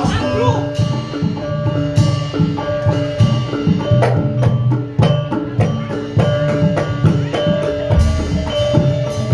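Music with mallet-struck tuned percussion ringing held notes over regular drum strokes.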